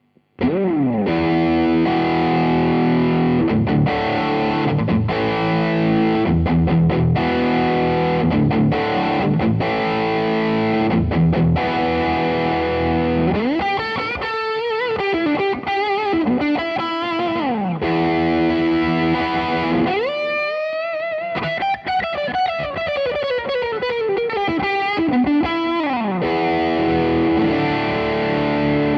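Music Man Silhouette Special electric guitar played through MODEP effect plugins on a Raspberry Pi–based Pisound board, ringing chords that start abruptly just after the opening. Several times in the middle the whole sound glides smoothly up and down in pitch.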